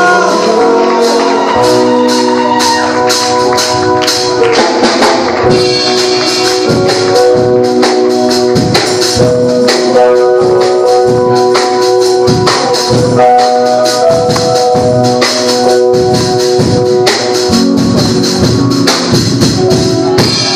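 Live church praise music: held keyboard/organ chords over a steady beat with tambourine.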